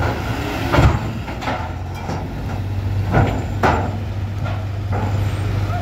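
Loaded Eicher truck's diesel engine running with a steady low hum as it rolls across steel ferry ramps. Several loud metal clanks come from the ramp plates, the loudest about a second in and two more at around three seconds.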